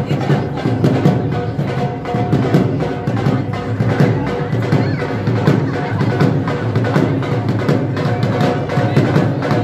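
Dhol, the double-headed barrel drum, played in a fast, steady beat, with a held melodic tone underneath.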